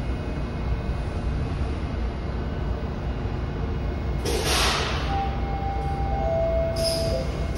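Bombardier T1 subway train standing at the platform with a steady low rumble. Short hisses of released air come about four and seven seconds in. Between them a chime of steady tones steps down in pitch, typical of the T1's door-closing chime.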